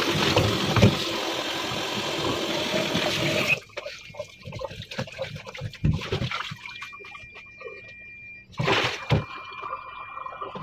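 Tap water running into a plastic colander in a stainless steel sink, stopping after about three and a half seconds. Then vegetables are stirred by hand in a basin of water, with small splashes and light knocks, and a short rush of water near the end.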